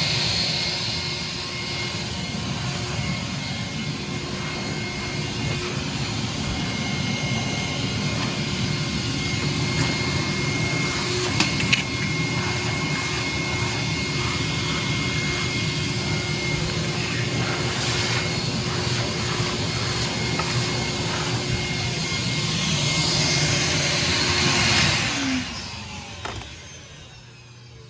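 Silver King vacuum cleaner running steadily as it sucks up dirt, with a couple of sharp clicks partway through. Near the end it is switched off and the motor winds down.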